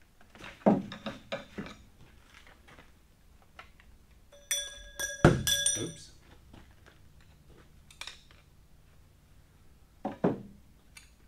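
Metal engine parts and hand tools clanking on a stripped-down diesel engine block. A run of clanks about a second in, then two sharp metallic clinks about halfway through that ring on briefly, and a single thunk near the end.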